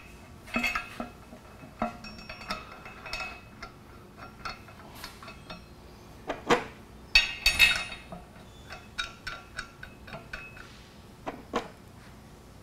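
Metal-on-metal clinks and knocks as a high-performance lug butterfly valve's body is handled and set into place between steel pipe flanges. The knocks come irregularly, some with a short ringing after them, with a busier cluster a little past the middle.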